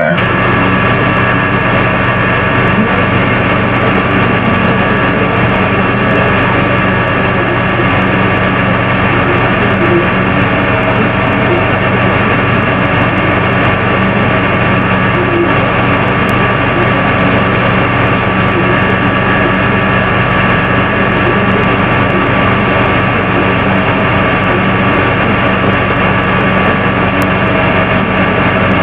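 Steady hiss with several unchanging hum tones running through it, the noise of a quiet room recording played back loud. The uploader hears these long tones as a child making sounds in the background.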